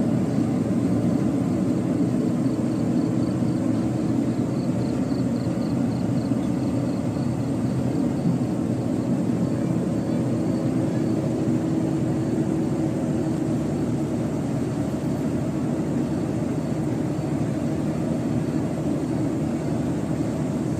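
A steady engine drone, low and even throughout.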